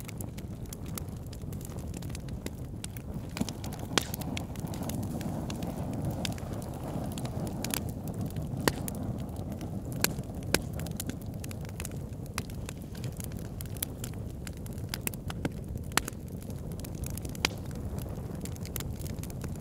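Wood fire crackling in a fireplace: frequent irregular pops and snaps, a few much sharper than the rest, over a steady low rush.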